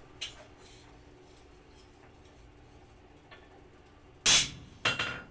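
Two hammer blows on a hand-held hot-cut chisel set on a red-hot steel bar on the anvil, about half a second apart near the end, hot cutting a piece off the bar. A light metal click comes right at the start.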